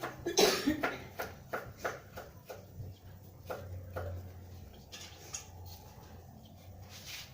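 Hands massaging a small child with a traditional urut massage, giving a run of light taps and clicks of skin and hands, about two or three a second, with a louder short burst about half a second in.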